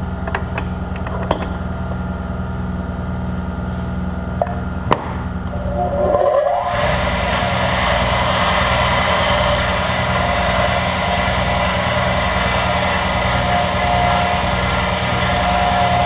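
A steady machine hum with a few sharp clicks, then, from about six seconds in, metal being ground on a bench grinder: a steady harsh hiss over the hum.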